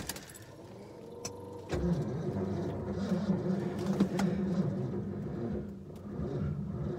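The starter cranks the cold, propane-fuelled Ford 460 V8 in a cold-start attempt. It begins about a second and a half in and runs steadily, but the engine does not fire: a failed cold start on a weak battery.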